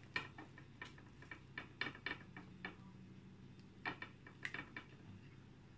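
Knife cutting through the crisp skin of a whole roast pig (lechon): a run of short, irregular crackles and crunches, with a pause of about a second in the middle before a second cluster.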